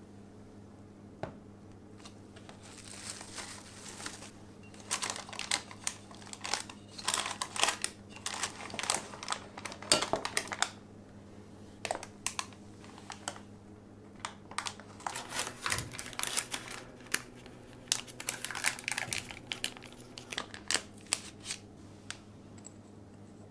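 Plastic wrap and parchment (cooking) paper crinkling in irregular crackles as a cake is unwrapped and lifted out of its round metal pan, in two long spells with a pause between them.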